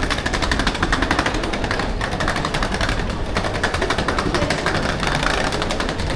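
Pneumatic jackhammer at roadworks, hammering in a rapid, steady rattle over low traffic rumble.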